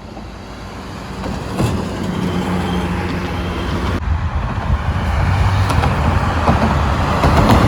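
A large bus passing on the road, its engine and tyre noise growing steadily louder as it comes close; it passes without sounding its telolet horn.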